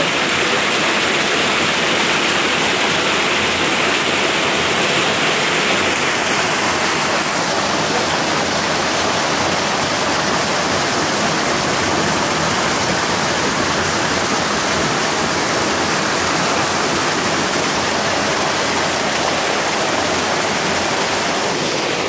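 Heavy flow of murky water pouring from a concrete outlet and splashing into a concrete basin below, rushing steadily.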